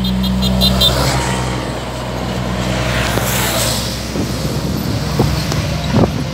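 Diesel engine of a container-hauling tractor-trailer passing close by at speed, its steady low drone giving way to tyre and road noise as it moves off, with motorcycles following behind it.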